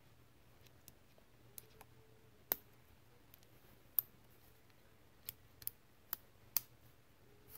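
Small metal parts of a Taurus 85 revolver's lockwork clicking as the trigger return spring and strut are worked into place between the trigger and frame: about ten sharp, irregular clicks, three of them louder.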